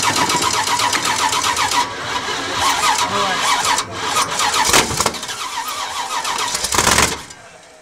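Freshly assembled small-block Chevy 350 on an engine stand being cranked over by its starter in several bursts, a fast even churning with a starter whine. It does not settle into running, and there is a short loud burst about seven seconds in before the cranking stops.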